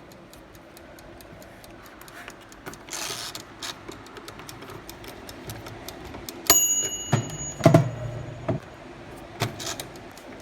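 Air fryer's mechanical dial timer ticking steadily, while the fryer itself fails to heat up. About six and a half seconds in comes a short bright ding of the timer bell, and a few dull knocks of handling are heard.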